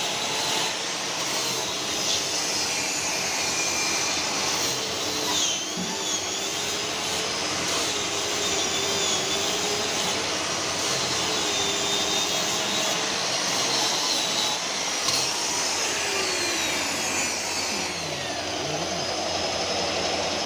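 Electric sanding machine running against a wooden speaker cabinet, a steady whining motor whose pitch wavers up and down as it is pressed and moved over the wood.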